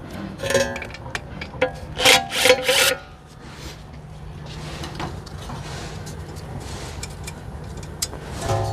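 Rusted wheel speed sensor scraping and squeaking in its bore as it is twisted and worked out of the steering knuckle, in several short loud bursts during the first three seconds. After that only a quieter steady hum with a few faint ticks.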